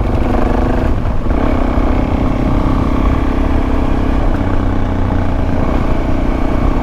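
Suzuki DR-Z400S dual-sport motorcycle's single-cylinder engine running at a steady pitch while riding, over low road and wind rumble. The engine note breaks briefly about a second in, then holds steady again.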